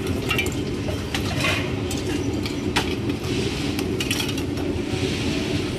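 Metal utensils and bowls clinking now and then at a street hawker's noodle stall, over a steady low rumble.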